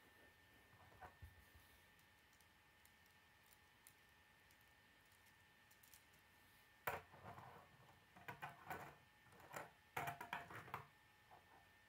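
Plastic K'nex pieces clicking and knocking as a toy skateboard is handled and set on a wooden tabletop: one sharp click about seven seconds in, then a run of short clicks and knocks for about four seconds.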